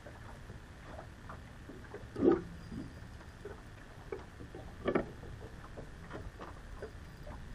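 Small waves lapping and slapping against the boat's hull in quick, irregular splashes, with two louder knocks about two and five seconds in.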